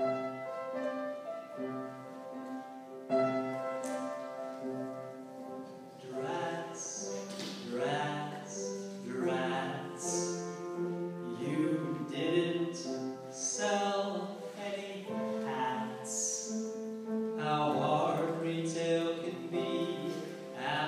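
Classical-style music: a few seconds of steady instrumental notes, then a voice singing a melody over the accompaniment from about six seconds in.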